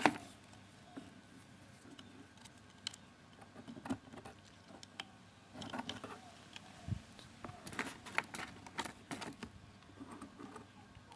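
Small plastic toy helicopter parts being handled and pressed together: scattered light clicks and taps, coming more often in the second half.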